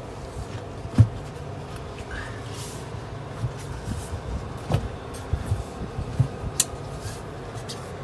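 Irregular knocks and clunks from handling a motorcycle wheel and tire while breaking the bead, with the sharpest knock about a second in and a cluster of smaller ones near the middle.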